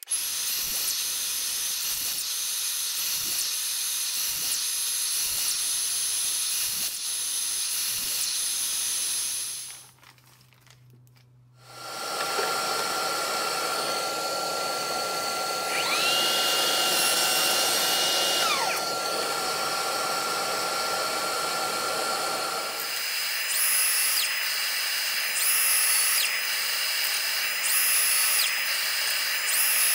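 Hikoki 7 1/4-inch cordless brushless sliding mitre saw running and cutting small segments off a hardwood strip, cut after cut. A brief near-silent break comes about ten seconds in, and near the end a quick run of short cuts comes about every second and a half.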